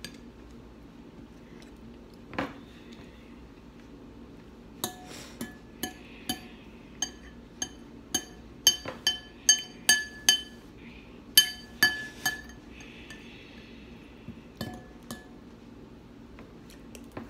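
Metal spoon clinking against a glass bowl of oatmeal as it scoops and stirs: a dull knock a couple of seconds in, then a long run of sharp, ringing clinks through the middle, with a few more near the end.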